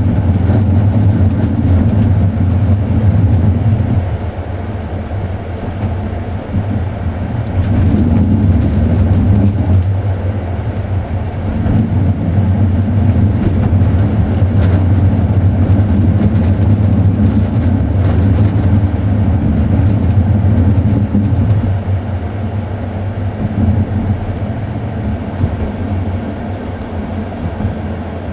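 Moving passenger train heard on board: a steady low rumble of wheels on rails, easing off briefly twice.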